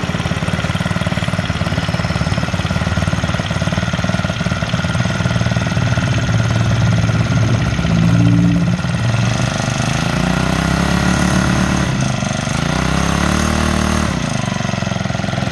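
Yamakoyo BG435 four-stroke OHC brush cutter engine running at a steady idle, then revved up and down a couple of times in the second half before dropping back to idle.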